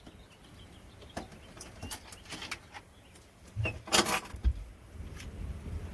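Scattered clicks and knocks of camper gear and cables being unplugged and handled, with a louder bump about four seconds in.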